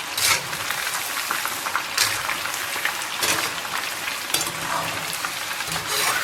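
Breadcrumb-coated chicken strips deep-frying in hot oil over medium heat: a steady crackling sizzle, with a few short louder bursts as the strips are stirred and turned.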